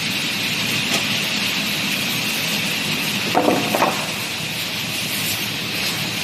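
Woodworking saw machinery running steadily with a constant hissing whine, and a brief cluster of louder metallic knocks about halfway through.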